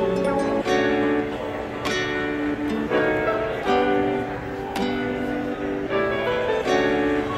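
Background music: a plucked guitar playing a melody of ringing notes.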